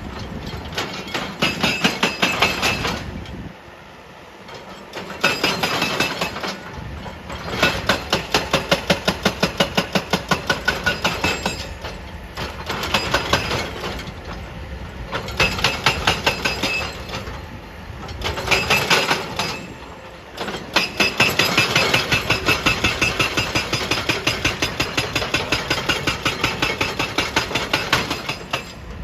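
Excavator-mounted hydraulic breaker pounding rock with rapid, evenly spaced blows that ring metallically. It runs in bursts of a few seconds, with brief pauses between them.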